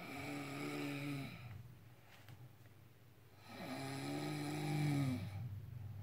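A woman snoring in her sleep: two long, pitched snores about three and a half seconds apart.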